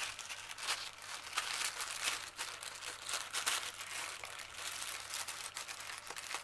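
Plastic poly mailer bag crinkling and rustling in a dense, irregular run of crackles as it is gripped and cut open with scissors.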